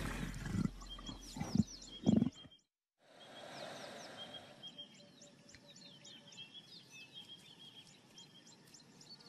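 Leopard snarling and growling in short, loud bursts, the loudest about two seconds in. After a brief cut-out, a quiet bush background with birds chirping.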